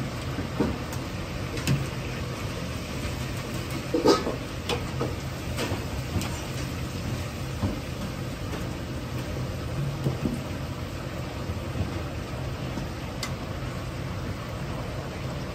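Potato chunks deep-frying in a wok of hot oil: a steady sizzling hiss over a low rumble from the wok's gas burner, with a few sharp clinks of a wire spider strainer against the wok, the loudest about four seconds in.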